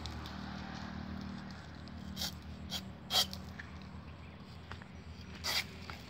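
A sickle blade scraping and chopping at a date palm's fibrous leaf bases: four short, sharp cuts a second or so apart, the loudest about three seconds in, over a faint low drone.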